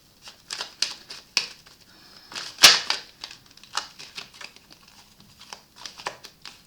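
Tarot cards being handled: a string of sharp snaps and taps, the loudest about two and a half seconds in.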